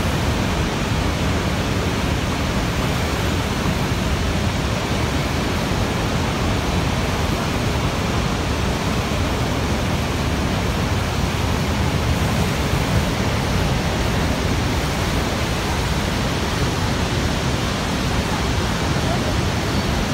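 Niagara's Horseshoe Falls pouring over its brink: a loud, unbroken rush of falling water, steady throughout.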